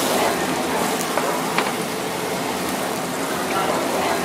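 Grouper fillet sizzling in hot fat in a metal roasting tray just out of the oven, a steady hiss with an occasional small pop.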